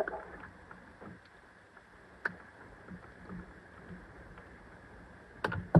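Wire cutters cutting through a rubber garden hose: faint scattered ticks, a sharp snap about two seconds in and a louder snap near the end.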